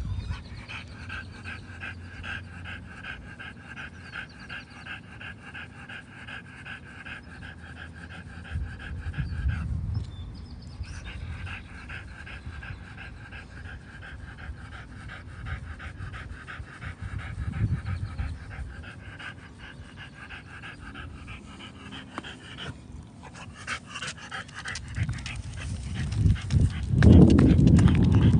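French bulldog panting rapidly and steadily. A louder low rumble comes in near the end.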